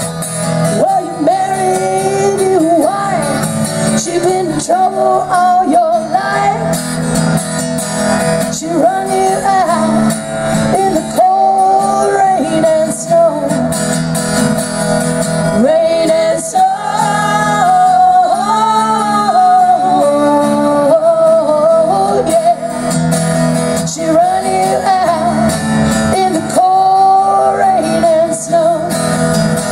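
A woman singing a folk song while strumming a steel-string acoustic guitar, played live through a small PA, with a second female voice at a nearby microphone.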